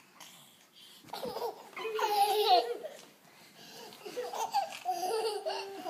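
Toddlers giggling and squealing with laughter: a loud, shrill laugh about two seconds in, then more giggles near the end.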